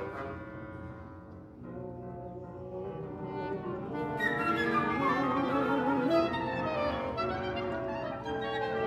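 A wind ensemble playing a contemporary concert piece. A quiet, thin passage builds louder and fuller from about four seconds in as more instruments join.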